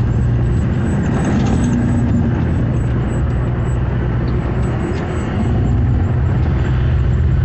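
Steady low engine drone and road noise heard from inside a vehicle cruising on a highway, easing slightly for a moment about five seconds in.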